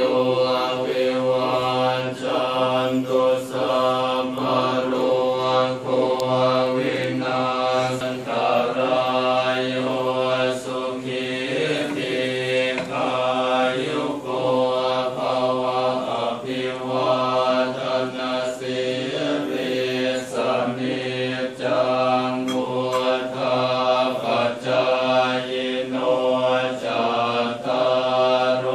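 Group of Thai Buddhist monks chanting Pali verses in unison: several male voices in a steady, continuous drone.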